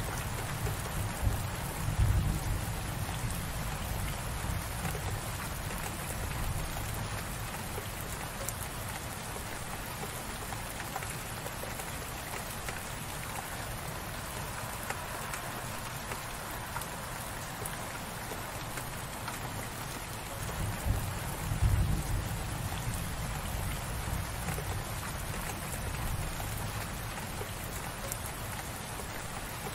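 Light, gentle rain falling steadily, an even hiss of drops on surfaces. A deep rumble rises out of it about two seconds in and again about twenty-one seconds in.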